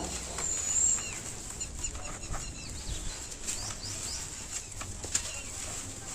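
Dry roasted dirt crumbling by hand: irregular gritty crunching and crackling.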